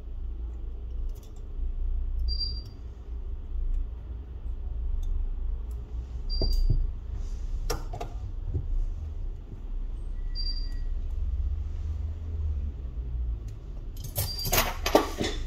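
Small sharp clicks and taps of small objects being handled, ending in a burst of metallic jingling and clattering near the end. A low hum runs underneath, and a short high beep repeats about every four seconds.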